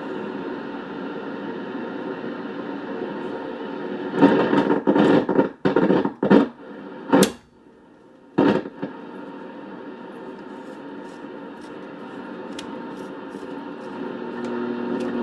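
Patterson Model 16C valve communications receiver playing shortwave static and hiss through a permanent-magnet speaker. Loud crackling bursts and sharp clicks come about four to nine seconds in, with a brief drop-out near the eight-second mark. After that the steady noise returns with scattered clicks.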